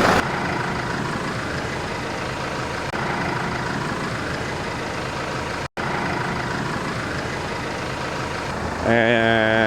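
Tractor engine running steadily while the tractor drives over to the next log. The sound drops out for an instant a little past halfway, and the engine note gets louder near the end.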